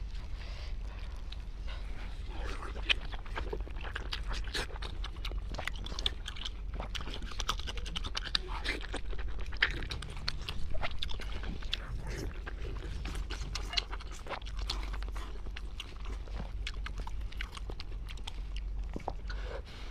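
A person chewing spicy braised pork close to the microphone: wet, irregular mouth clicks and smacks.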